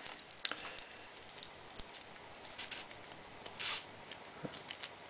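Faint, scattered light clicks and ticks of a small metal safety key and its lanyard being handled against a handheld laser's body, with a brief rustle about three and a half seconds in.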